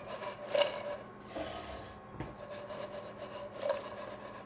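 Dry bread cubes rattling and scraping against a nonstick frying pan as the pan is shaken over the burner, with two louder sweeps, about half a second in and near the end. The dry, rattly sound is the sign that the cubes have begun to dry out and crisp.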